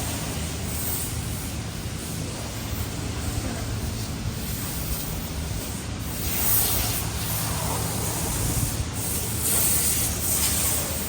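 Industrial machinery hum with a steady hissing, rubbing noise on top. The hiss comes in stronger surges in the second half.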